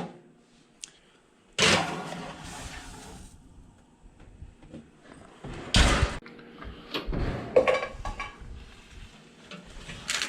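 A few separate knocks and clatters of kitchen handling, like a drawer or cupboard being shut: one about a second and a half in, the loudest near the middle, and a smaller one shortly after.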